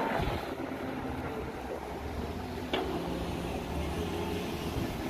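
KATO tracked excavator's diesel engine running steadily under work, with two sharp clanks from the machine: one at the start and one a little under three seconds in.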